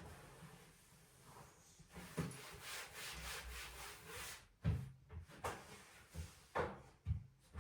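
Hand tidying sounds: something rubs and slides across a surface for about two seconds, then a series of short knocks and thuds as objects are picked up and set down.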